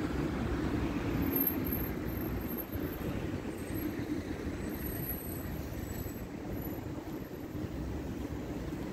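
City street traffic: a steady rumble of motor vehicles running by.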